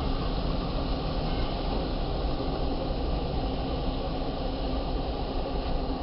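Massey Ferguson 5S.125 tractor's four-cylinder diesel running steadily under load while pulling a knife roller through a mustard cover crop: a continuous rumbling noise with a faint steady hum.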